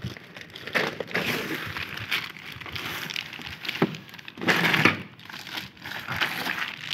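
Clear plastic wrapping crinkling and a cardboard box rustling as a boxed submersible pump and its coiled cable are handled and lifted out, in irregular bursts with the loudest about two-thirds of the way in.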